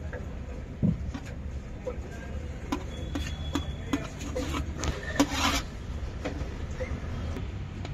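Knife cutting dhokla in a metal tray: scattered sharp taps and scrapes, with a longer scrape about five seconds in.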